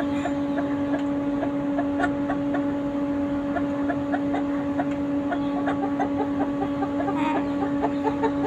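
Hen clucking in a quick string of short clucks, about three a second, over a steady low hum.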